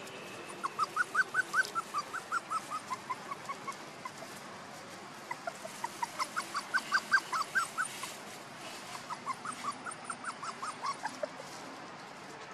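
Puppy yelping in three bouts of quick, short, high-pitched yelps, each bout rising and then falling in pitch.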